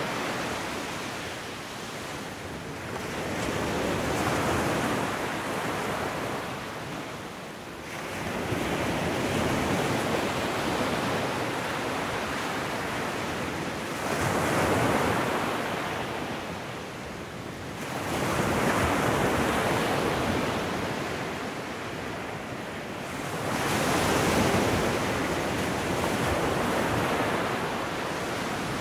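A rushing noise like surf, swelling and fading in slow surges about every five seconds.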